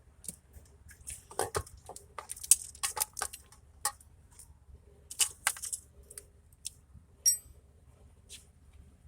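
Small metal parts and tools being handled: a run of sharp clicks, clinks and rattles, then one ringing metallic clink about seven seconds in.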